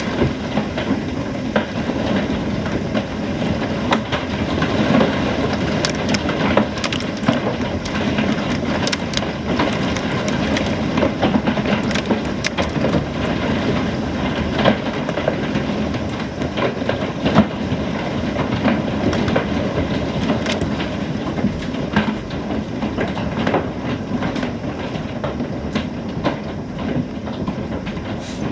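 Heavy hail and rain pelting down, a dense steady rush with many sharp clicks and knocks of hailstones striking hard surfaces.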